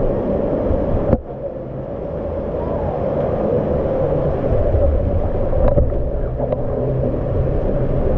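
Water flowing down a plastic water slide amid the steady din of an indoor water park, with a sharp knock about a second in.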